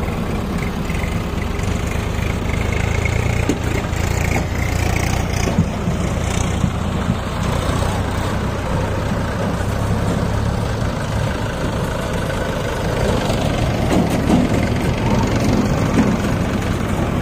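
Diesel engines of a JCB 3DX backhoe loader and a Mahindra 575 tractor running steadily at low revs, with a few louder knocks and rattles near the end.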